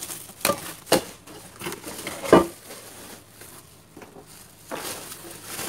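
Forged-aluminium cookware pots and metal-rimmed lids knocking together as a bubble-wrapped pot is lifted out of its box: a few clanks, the loudest a little past two seconds in with a short ring. Bubble wrap crinkles near the end.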